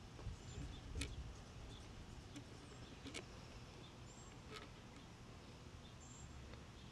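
Faint outdoor background with birds chirping briefly a few times and a few soft clicks, while motor oil is poured from a plastic jug into a funnel without much sound of its own.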